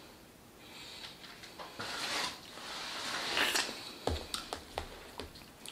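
Rustling, then a run of light clicks and taps in the last second and a half, as cilantro and onions are taken by hand from their container and sprinkled onto tacos.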